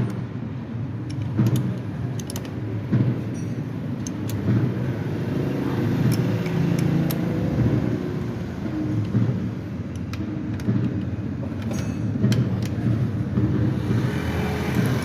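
An engine running steadily at a low idle, with scattered sharp clicks and knocks over it.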